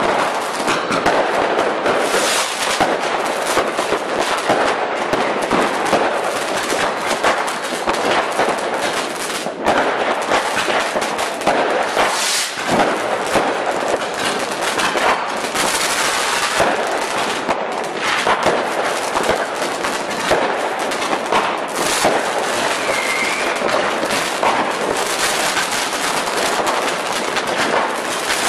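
Fireworks crackling and popping densely and without a break, many sharp bangs overlapping.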